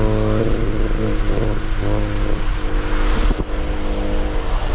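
Car running along a wet, salted road: a steady engine hum with tyre noise. The engine note changes about half a second in, and there is a brief swell of noise just after three seconds.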